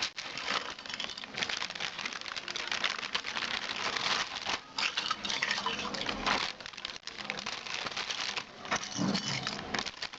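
Ice cubes being put into an airtight plastic bag: the plastic crinkles and the cubes make many small, irregular clicks against each other.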